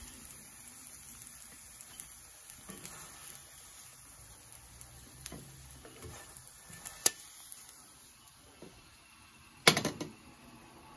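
Faint sizzle of oil in a hot cast iron pan, with light clicks of kitchen tongs as fried slices are lifted out. Shortly before the end comes a brief clatter, the loudest sound, as the tongs set the food down on a plate.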